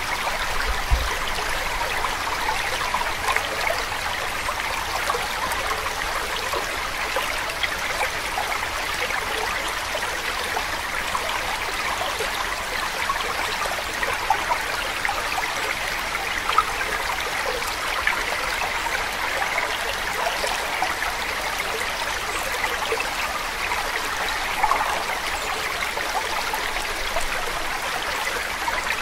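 Steady, even rush of running water like a flowing stream, with a few small splashes standing out now and then.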